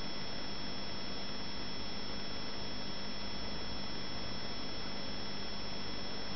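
Aquarium running: the steady hiss of a stream of air bubbles rising through the tank water, with a steady hum from the tank underneath.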